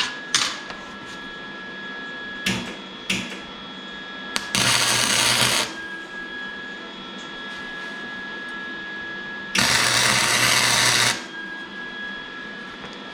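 Two tack welds from an arc welder on the intake's metal tubing, each a loud crackling burst of about a second, the first about four and a half seconds in and the second about four seconds later, with a few sharp clicks before them.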